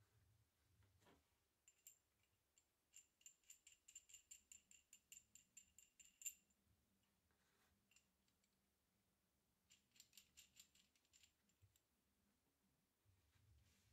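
Faint light metallic ticking of hex nuts being spun by hand along a steel bolt's threads: a quick run of ticks, about six a second, for roughly three seconds, then a second shorter run a few seconds later.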